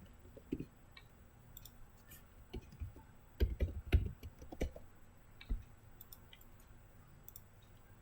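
Scattered clicks and taps from a computer keyboard and mouse, the loudest in a quick cluster about three and a half to five seconds in, then fainter light ticks.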